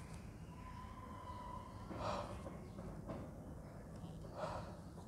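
A man breathing deeply, with two short audible breaths about two and a half seconds apart, over a faint steady hum.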